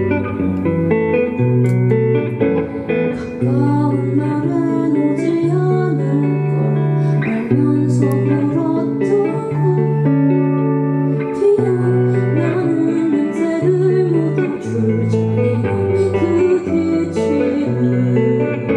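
Indie band playing live, guitar to the fore, over a low line of long held notes.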